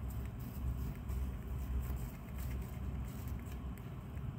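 Hamster chewing a piece of green food: faint, quick crunchy clicks, several a second, over a steady low rumble.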